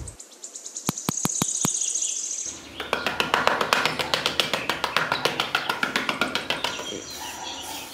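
A high bird trill in the first couple of seconds. Then, from about three seconds in, a small hand trowel scrapes across a gritty floor surface in quick, rasping strokes, with birds chirping behind it.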